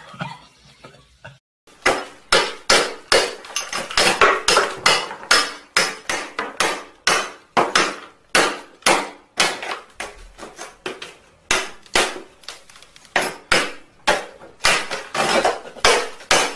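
Hammer striking a hardened shell set around a person's head, blow after blow, about two to three sharp knocks a second, starting about a second and a half in.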